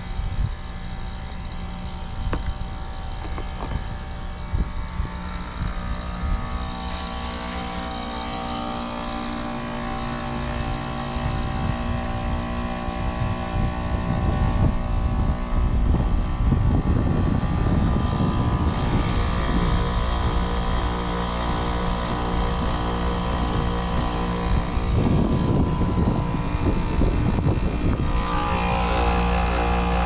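2002 Goodman CPLJ 5-ton heat pump outdoor unit running, a steady compressor and fan hum with several fixed tones. It grows louder about halfway through, heard close up.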